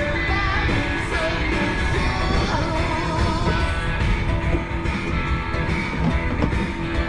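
Rock song playing: a singing voice over guitar.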